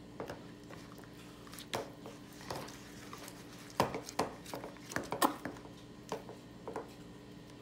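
Metal spoon stirring a thick glue and baking-soda mixture in a plastic tub, giving irregular clicks and knocks as it strikes the container. The knocks come thickest and loudest about four to five and a half seconds in.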